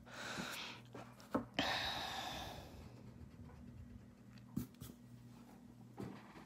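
Pencil drawing on paper: faint scratching strokes in the first few seconds, then a few soft ticks.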